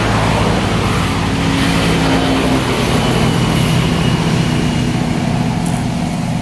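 Road traffic noise: a vehicle engine hums steadily and loudly close by, without a break.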